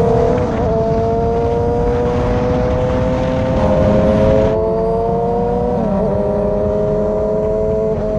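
Sport-bike engine running steadily at high revs, a whine that climbs slowly in pitch, over a rush of wind and road noise.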